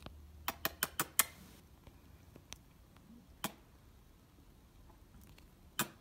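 Sharp clicks from an Indian ringneck parakeet's beak right at the microphone: a quick run of five clicks about a second in, then a few single clicks, the loudest near the end.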